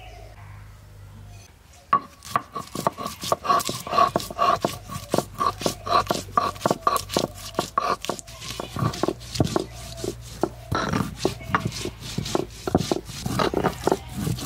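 Fast, regular chopping strikes, about four or five a second, starting about two seconds in, with a ringing metallic tone over the first several seconds.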